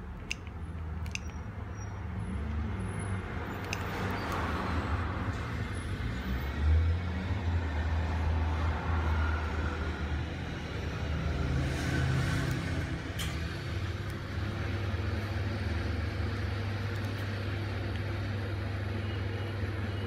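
A steady low rumble that swells briefly about seven seconds in, with a few faint clicks near the start.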